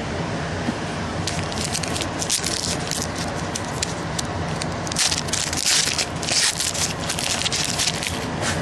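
Crinkling and crackling of a foil trading-card pack wrapper being torn open and handled. The crackles start about a second in and are densest just past the middle.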